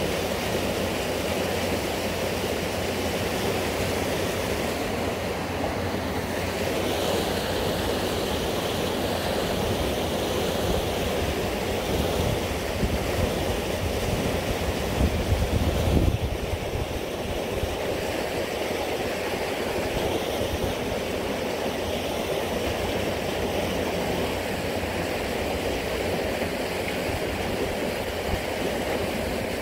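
Steady rushing of river water where a fast white current pours into a pool, with a louder low rumble for a few seconds around the middle.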